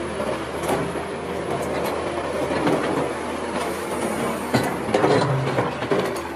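Heavy Liebherr earthmoving machines, a wheel loader and an excavator, working rock in a quarry: a steady diesel drone under repeated clanks and rattles of stone.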